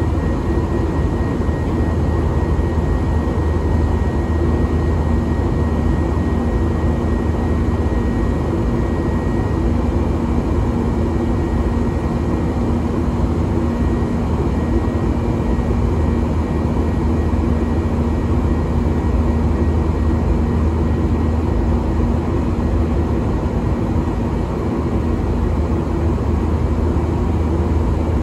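Steady cabin noise of a Boeing 737-800 climbing, heard from inside the passenger cabin: its CFM56 turbofans' drone and the rush of air, with a deep rumble and a few steady hums underneath.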